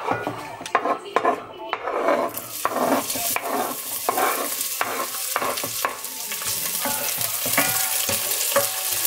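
Diced onions scraped off a wooden cutting board with a wooden spatula into a stainless steel pot, with clattering scrapes and taps of the spatula on board and pot. About two to three seconds in they start sizzling as they fry, and the sizzle grows while they are stirred.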